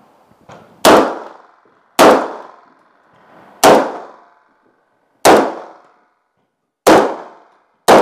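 Six shotgun shots, about one to one and a half seconds apart, each echoing briefly in a small room.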